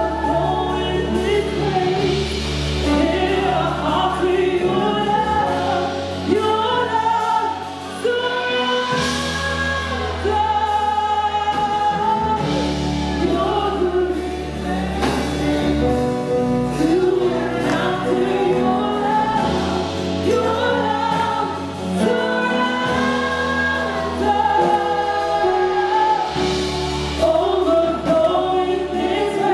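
Gospel praise-and-worship team singing together into microphones, over long held bass notes that change every couple of seconds.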